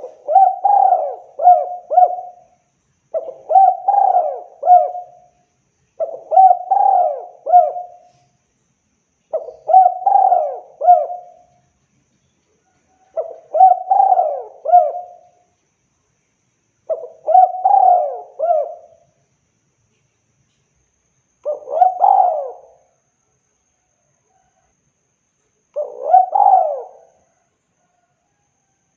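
Spotted dove cooing: eight phrases, each a quick run of several coos, repeated every three to four seconds with the pauses growing slightly longer toward the end.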